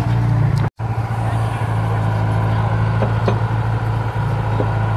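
Heavy-equipment engine running steadily with a low hum, cutting out for an instant just under a second in.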